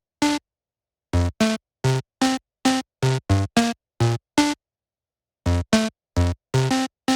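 Electronic background music: a run of short, clipped synthesizer notes, about two or three a second, broken by two brief pauses.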